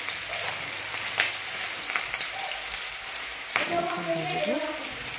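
Sliced onions frying in hot mustard oil in a wok, a steady sizzle. A metal slotted skimmer clicks sharply against the pan three times.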